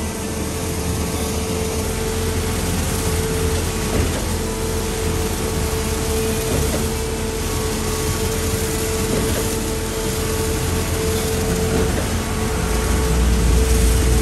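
Shotcrete machine running steadily as its robotic boom sprays concrete: a constant machine drone with a steady whine, the low rumble swelling louder near the end.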